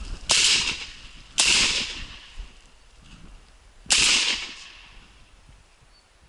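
Three shotgun shots: two about a second apart, then a third about two and a half seconds later, each with a short trailing echo.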